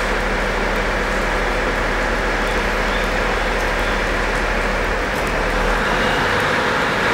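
KiHa 40 series diesel railcar's engine running steadily as the train stands ready to depart; about six seconds in the low engine note changes and the sound grows a little louder as the train prepares to pull out.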